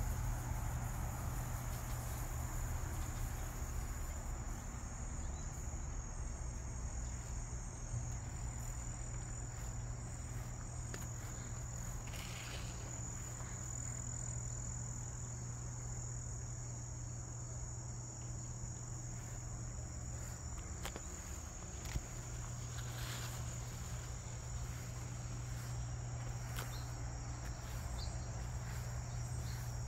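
Insects trilling in one continuous high-pitched tone, steady throughout, over a steady low hum.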